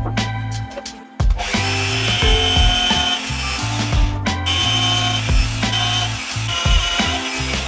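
A power tool starts about a second in and runs with a hissing whine, working metal or wood, over background music with a steady beat.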